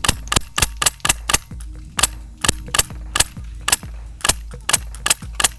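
Airsoft gun firing a quick, uneven string of single shots, about fifteen sharp cracks.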